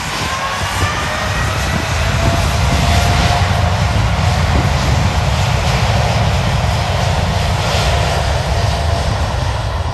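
Boeing 787's Rolls-Royce Trent 1000 turbofans at takeoff thrust on the takeoff roll: a loud jet roar over a deep rumble. A whine rises in pitch over the first couple of seconds as the sound builds, then holds steady.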